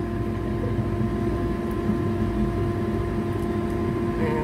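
Steady motor hum with a low rumble from the kitchen, even and unchanging, the kind a running extractor or room fan makes.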